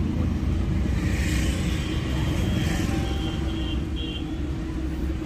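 Road traffic: a steady low engine rumble with vehicles passing, a hiss of tyres and engines swelling and fading in the first half. A few short high-pitched beeps come about three seconds in.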